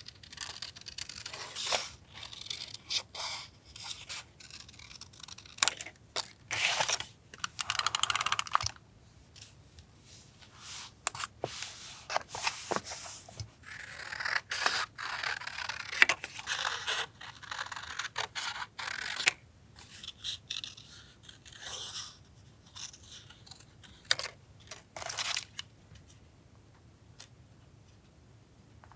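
Paper being handled for collage journaling: irregular rustling swishes of paper with scattered sharp clicks and taps.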